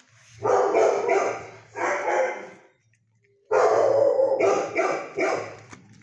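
Dog barking in two bouts of several barks each, with a short pause between them.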